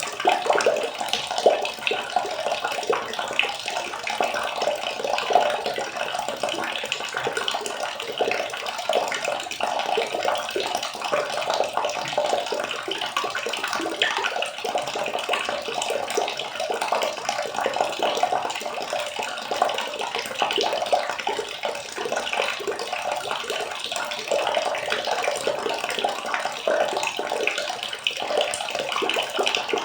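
Water running and splashing continuously, a dense, crackly, unbroken sound like a tub being filled.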